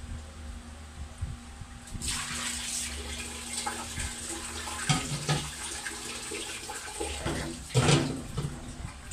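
Water splashing into a stainless steel sink as fish are rinsed in a plastic colander and basin, with the odd knock of plastic bowls. There is a louder splash near the end.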